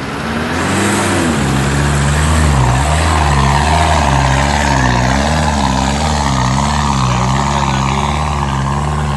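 Lifted first-generation Nissan Terrano climbing a muddy slope under hard throttle: the engine comes up to revs right at the start and then rises and falls in pitch over and over, about three times every two seconds, as the throttle is worked to keep the mud tyres biting.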